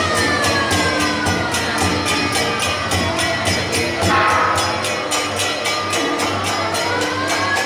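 An air-raid siren wailing with its pitch sliding slowly down, jumping up about halfway through and climbing again near the end. Under it runs the steady fast beat of temple-procession percussion with cymbals, about four strokes a second.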